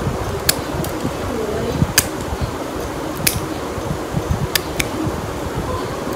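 Steel nail nippers snipping through a thick, crumbly toenail thickened by fungal infection (onychomycosis): about six short, sharp clicks, spread unevenly, over a steady low background noise.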